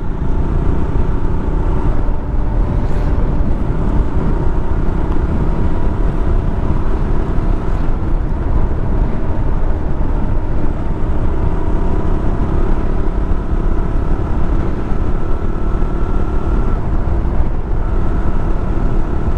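KTM motorcycle engine running at a steady cruise while riding, under heavy low wind rumble on the action camera.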